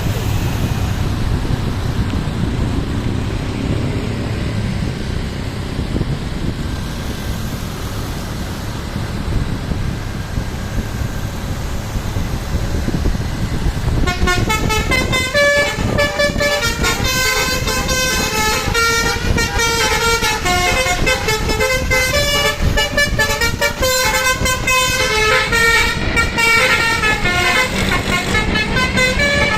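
Low bus engine and road rumble, then about halfway in a tour bus's telolet 'basuri' musical air horn starts playing a tune, a quick run of stepped notes that goes on to the end.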